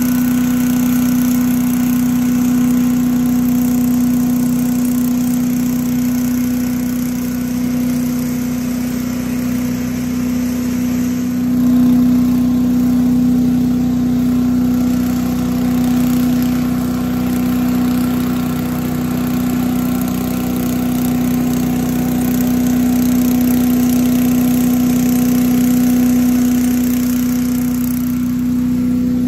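An 8 hp Little Wonder leaf blower mounted on a Kubota compact tractor's three-point hitch, running steadily along with the tractor's engine as it blows leaves. A continuous engine drone with a strong steady hum, briefly swelling about twelve seconds in.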